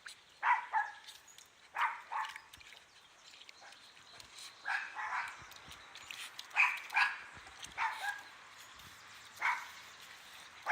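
A dog barking: about ten short barks, mostly in quick pairs, with gaps of one to two seconds between them.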